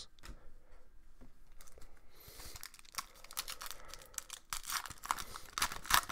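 A trading card pack's wrapper being torn open and crinkled by hand: a hissing crinkle about two seconds in, then a run of sharp crackles and clicks.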